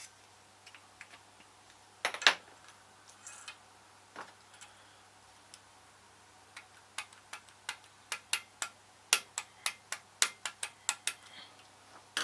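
Sharp small clicks and taps, a loud cluster about two seconds in and then an irregular run of two to three clicks a second in the second half.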